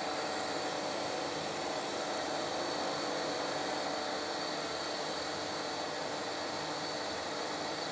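Record Power DS300 disc sander running, with a hand-held sheet of sandpaper pressed against its spinning metal disc to grind the disc's dished face flat: a steady hiss with a constant whine.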